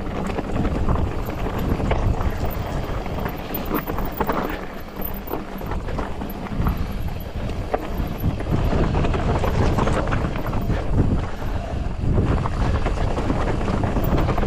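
Polygon Siskiu T8 full-suspension mountain bike coasting downhill on a rough trail: tyres clattering over the ground and the bike rattling with many sharp knocks, while wind buffets the microphone.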